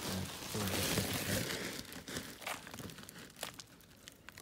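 Woven plastic feed sack crinkling and rustling as it is handled, loud for about the first two seconds, then giving way to a few light clicks and taps.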